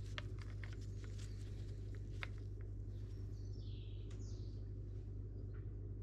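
A few light clicks and ticks from gloved hands handling small plastic brake-bleed parts, and a short bird chirp about halfway through, over a steady low hum.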